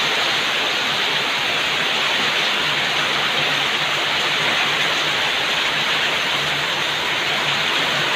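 Heavy rain pouring down steadily, a dense even hiss of falling water with no let-up.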